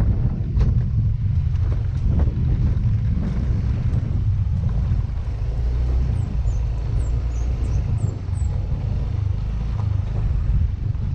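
Yamaha Mio Gravis scooter being ridden, its engine and tyres under a heavy low rumble of wind buffeting the microphone. A few short knocks come in the first few seconds as it goes over bumps in the rough road.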